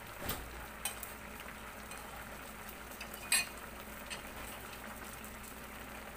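Metal spoon clinking and scraping against a ceramic plate of coconut cream a few times, the sharpest clink about three seconds in, over the steady hiss of a pot of fish in coconut milk simmering on the stove.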